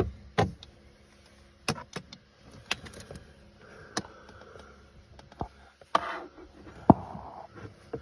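Scattered light clicks and knocks of a phone being handled against the plastic heater box, with a little faint rustling between them.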